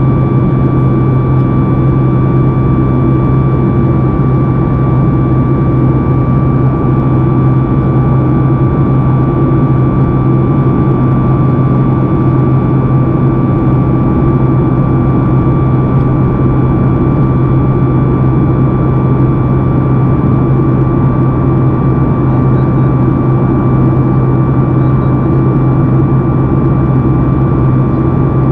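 The engines of a Boeing 737 MAX 8, CFM LEAP-1B turbofans, heard inside the cabin over the wing during the climb. They make a loud, steady low drone with a few steady whining tones above it.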